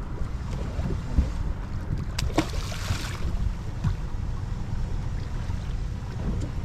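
Wind rumbling on the microphone aboard an anchored boat. There is a short click and hissing rush about two seconds in.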